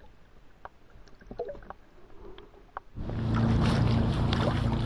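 Muffled underwater sound of a pond: faint, scattered clicks and small knocks. About three seconds in it switches abruptly to open air, a steady low rushing noise.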